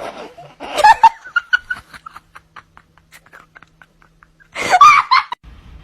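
A person laughing: a loud burst, then a run of short, rapid pulses of giggling, and a second loud burst of laughter near the end.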